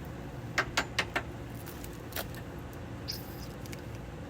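Sharp metallic clicks and knocks from the water heater's valves and fittings being handled: four in quick succession about half a second in, another about two seconds in, then a brief squeak, over a low steady hum.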